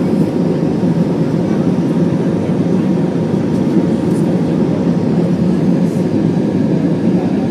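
Steady cabin noise inside an Airbus A320 in flight: the engines and airflow make an even, loud roar.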